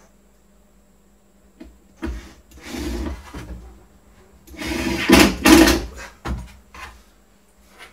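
Scraping and knocking of a unit being worked into the opening of a small wooden cabinet, much like a drawer sliding. It comes in two rough bursts about two and about five seconds in, the second the louder, with a few short knocks after.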